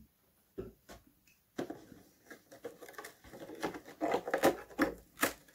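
A small cardboard stirrup box being opened and its packaging handled: irregular clicks, taps and short scraping rustles, growing busier toward the end.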